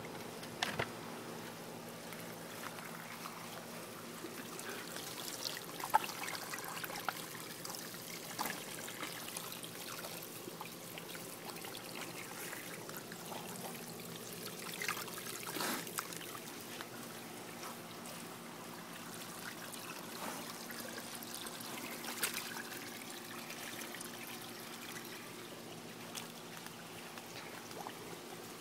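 Water from a garden hose trickling and splashing steadily into a muddy puddle. A few short, sharp sounds stand out, the sharpest about six seconds in.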